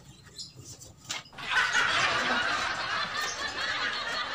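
Laughter that starts suddenly about a second and a half in and keeps going, a dense mass without one clear voice, like several people or a laugh track.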